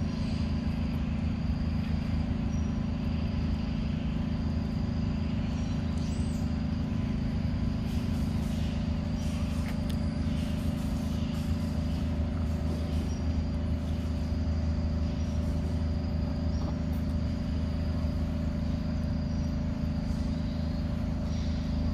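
A steady low mechanical hum, like an engine running, unchanging throughout, with faint clicks now and then.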